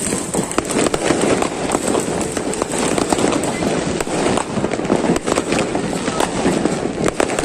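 New Year fireworks and firecrackers crackling and popping continuously, many sharp bangs overlapping with no pause.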